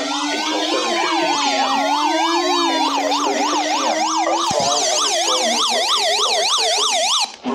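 Electronic emergency-vehicle sirens sounding together: slow rising-and-falling wails that quicken into a fast yelp of about three or four cycles a second, over a low held tone that fades out about five seconds in. The sirens cut off suddenly near the end.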